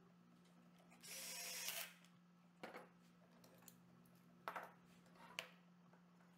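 Festool cordless drill-driver running briefly, for just under a second, driving a screw into a wooden blocking piece. A few short knocks and clicks follow as the drill is set down and clamps are handled.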